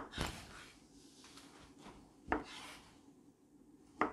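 Kitchen knife cutting through a roll of fresh pasta dough and knocking on a wooden cutting board: three cuts about two seconds apart, each a sharp knock followed by a brief rustle.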